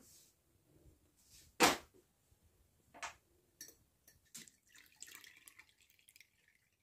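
Several sharp knocks of a glass jug being handled, the loudest about a second and a half in. Then liquid trickles from the jug through a muslin cloth near the end.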